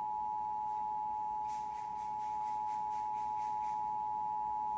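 Emergency Alert System two-tone attention signal on a TV broadcast: a loud, steady dual tone held without a break, the signal that an emergency alert message, here a flash flood warning, is about to follow.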